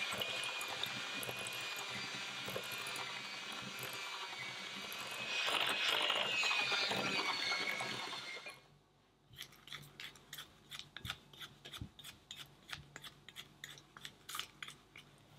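Electric hand mixer with wire beaters creaming butter and sugar in a glass bowl: a steady motor whine that grows louder for a few seconds and stops about eight seconds in. After that, a silicone spatula scrapes around the glass bowl in a quick run of short scrapes.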